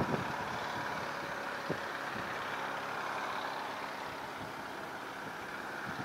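A vehicle engine running steadily at a low, even level, with one small click about two seconds in.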